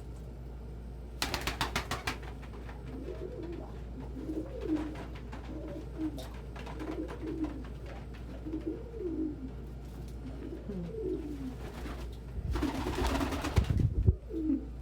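Domestic pigeons cooing, a low call that rises and falls and repeats every second or so. There are short bursts of rapid wing flapping about a second in and again near the end.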